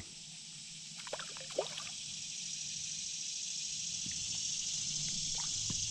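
Light water splashing and dripping as a hooked bluegill is played and brought to the kayak, a few small splashes about a second in and again near the end. Under it runs a steady high-pitched hiss of insects.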